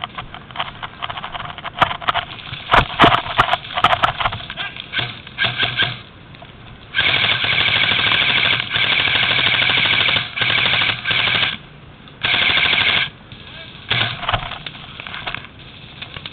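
Airsoft rifle firing in full-auto bursts: a long buzzing stream of shots starting about seven seconds in, then two shorter bursts. Before that come scattered sharp snaps and rustling.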